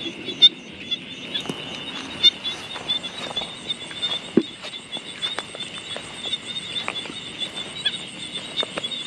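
Insect chorus, a steady high trill that pulses quickly, with scattered short clicks and rustles of footsteps through grass.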